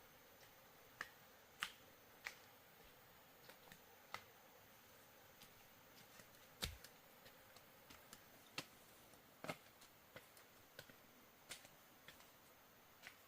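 Quiet background broken by scattered faint, sharp clicks and taps at irregular intervals, about one a second, a few of them louder.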